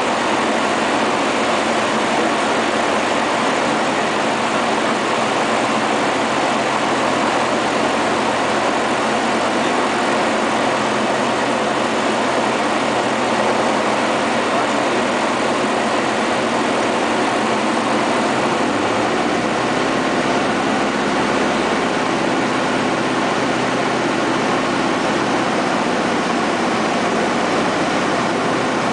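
Van's RV-9A light aircraft's piston engine and propeller running steadily, heard from inside the cockpit with airflow noise on the landing approach. A deeper hum comes in about two-thirds of the way through.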